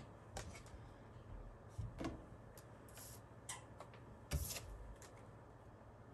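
Faint, scattered clicks, taps and rustles of paper business cards and cardboard being handled on a desk, with a somewhat louder knock and rustle about four seconds in.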